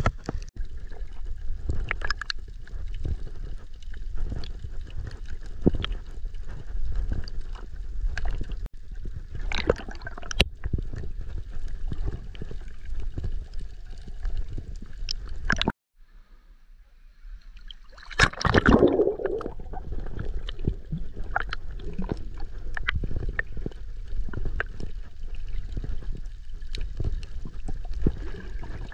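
Water moving and gurgling around a camera held underwater, heard through the housing as a low rumble scattered with small sharp clicks. The sound cuts out suddenly about two-thirds of the way through, then builds again into a louder rushing gurgle a couple of seconds later.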